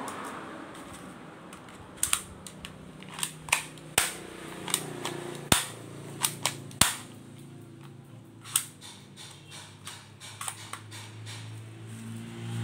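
Plastic cocking toy pistol being worked by hand: a string of sharp plastic clicks and snaps, irregularly spaced, bunched in the first two thirds and thinning out after. A low steady hum rises underneath near the end.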